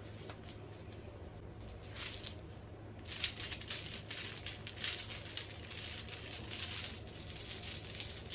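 Hands gathering long braided hair into a ponytail: soft, irregular rustling and swishing strokes as the braids are pulled up and bound, starting about two seconds in, over a low steady hum.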